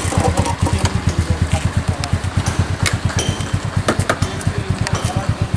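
TVS NTorq 125 scooter's single-cylinder engine idling, an even low pulsing of about ten beats a second.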